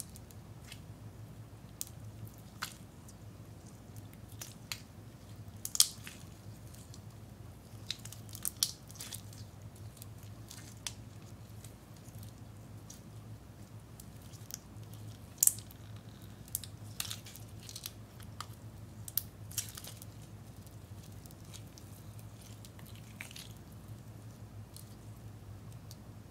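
Sticky orange slime being squeezed and pulled apart in the hands, giving irregular wet clicks and pops, the sharpest about six seconds in and again near the middle.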